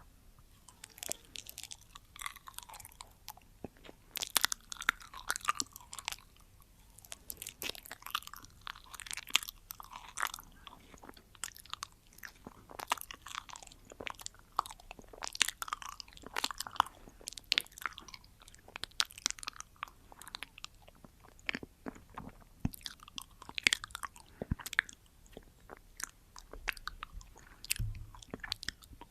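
Close-miked chewing and biting of fruit: a steady run of irregular wet crunches, clicks and mouth smacks.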